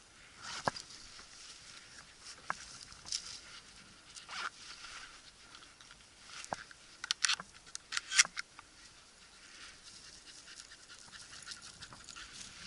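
Footsteps crunching and brushing through dry grass on stony ground, with scattered sharp crunches and scrapes; a quick run of louder ones comes about seven to eight seconds in.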